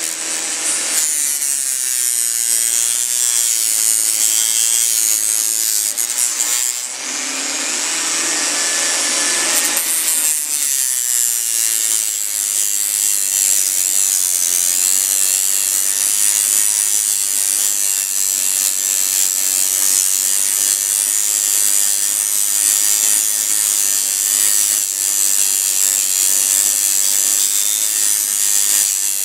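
Electric rotary tool with an 80-grit sanding wheel, run at low speed, sanding old gasket residue off the intake port flange of a Suzuki GS450's cylinder head. It makes a steady abrasive hiss, with a fuller, louder stretch of grinding about seven to ten seconds in.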